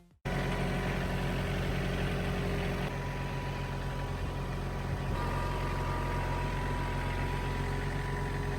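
An engine running steadily at a constant speed, with a strong low hum; a thin whine joins about five seconds in.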